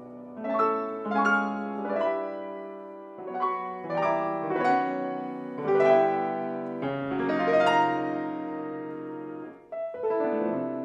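Solo piano playing a classical piece: phrases of struck notes and chords that swell and fade, with a short break and a new chord near the end.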